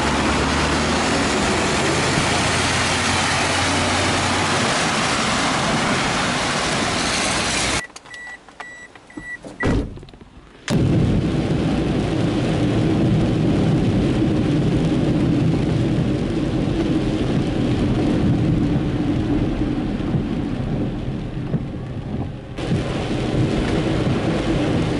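Rain on the car and tyres hissing on a wet road, heard from inside a moving car as a steady, loud rush. The sound cuts out for about three seconds near the middle, then returns with a steadier low drone.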